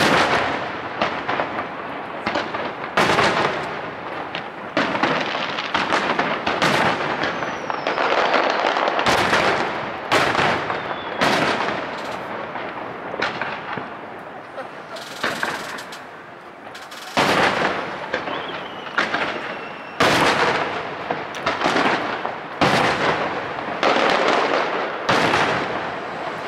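Aerial fireworks shells bursting one after another, about one bang every one to two seconds, each followed by a long echoing rumble and crackle.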